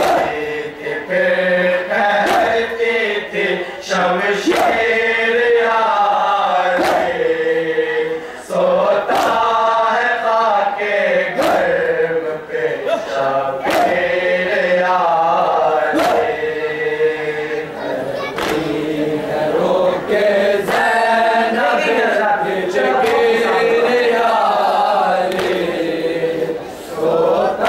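Men chanting an Urdu noha (mourning lament) in chorus behind a lead reciter at a microphone. Sharp slaps of chest-beating (matam) keep time roughly once a second. The chant dips briefly near the end.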